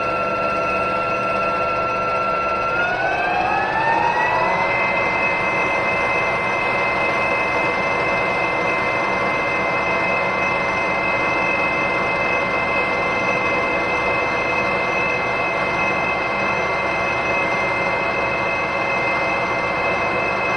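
Metal lathe running with a steady whine over a hissing rub, typical of sandpaper held against the spinning washer stock. About three seconds in, the whine rises in pitch as the spindle speeds up, then holds steady.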